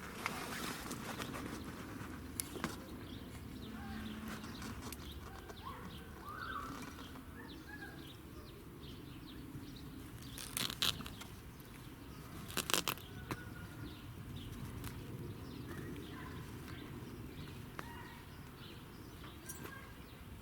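Outdoor ambience with faint bird chirps scattered through it. About halfway there are two short bursts of sharp clicking or rattling, the loudest sounds, a couple of seconds apart.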